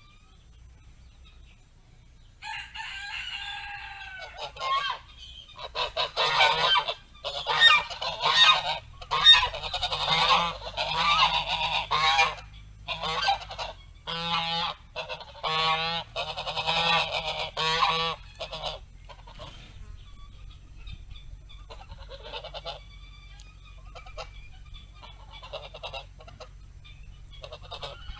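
Geese honking: a dense run of loud, overlapping calls, thinning out to scattered fainter calls in the second half.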